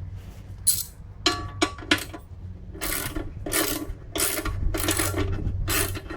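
Hand socket ratchet being worked back and forth to loosen a bolt: a few single clicks, then about five quick rattling strokes of the pawl, roughly one every two-thirds of a second.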